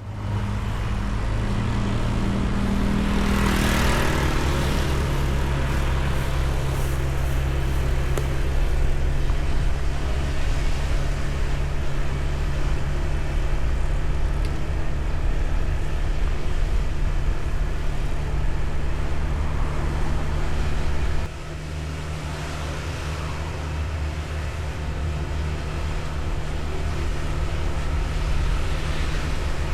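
Honda ADV 160 scooter's single-cylinder engine running steadily while riding, with wind and road noise. The sound starts suddenly and drops abruptly about 21 seconds in.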